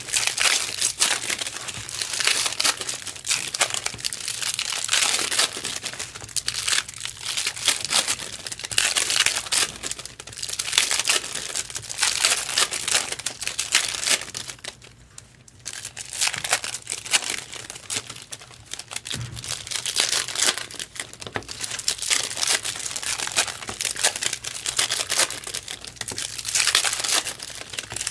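Foil trading-card pack wrappers being crinkled and torn open by hand in repeated bouts, with a brief pause about halfway through.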